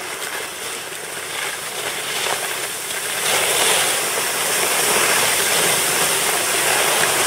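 Steady hissing rush of skis sliding over packed snow as the skiers move down the slope, mixed with wind on the microphone; it grows louder about three seconds in.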